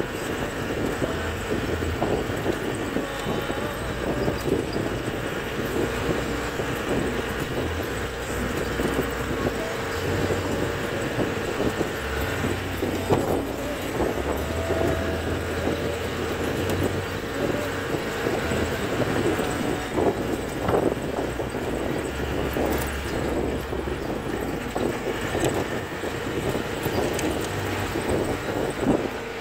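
CJ 550 jeep driving along a rough dirt track, its engine running steadily under the clatter and rattle of the open body, with frequent short knocks as it goes over bumps.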